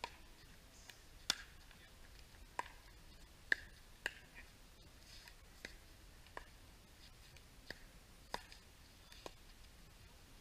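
A pickleball rally: about ten sharp pocks of the plastic ball off paddles and the court, at uneven intervals of roughly half a second to a second and a half. The loudest come about a second and three and a half seconds in.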